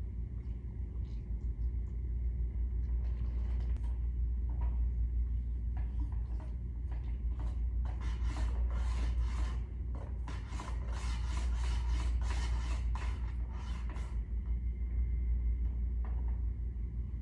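Paint being applied to a wall: an applicator rubbing in scratchy strokes, a quick run of several strokes a second through the middle, over a steady low rumble.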